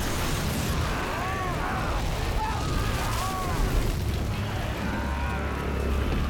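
Dragonfire blast in film sound design: a sustained rush of flame over a deep rumble, with the rumble growing heavier near the end. Short rising-and-falling cries rise over it twice in the first half.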